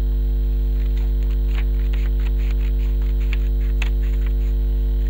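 Steady electrical mains hum throughout, with faint, irregular snips of scissors cutting through a sheet of paper.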